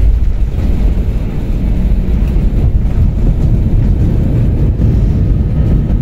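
Airliner on its landing roll, a loud steady low rumble of engines and wheels on the runway heard from inside the passenger cabin.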